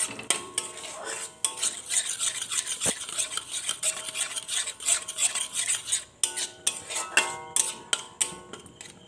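Flat metal spatula scraping and knocking against a metal kadai as a thick yogurt and spice paste is stirred, in a quick run of strokes. A few strokes near the middle set the pan ringing briefly.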